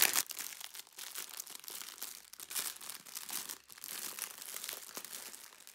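Clear plastic wrapping crinkling and crackling irregularly as fingers pick it open around a rolled bundle.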